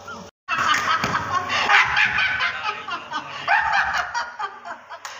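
People laughing, mixed with raised voices. The sound cuts out completely for a moment just after the start.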